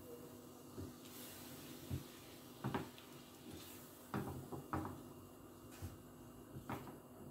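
A spatula knocking and scraping against a steel saucepan as thick mango pulp is stirred while it reduces on low heat: several faint, short knocks at irregular intervals.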